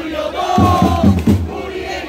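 Football supporters chanting in unison to a steady, rapid beat, with hands clapping along.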